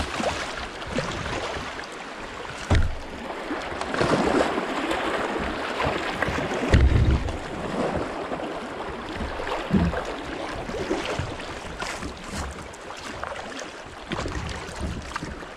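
Creek water rushing and splashing around a kayak's hull as it runs a shallow riffle, with a few brief low thumps.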